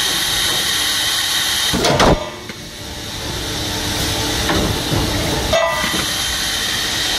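Extrusion blow molding machine running with a steady hiss. A loud burst about two seconds in is followed by a quieter stretch that builds back up, and a sharp knock comes about five and a half seconds in, as the machine cycles.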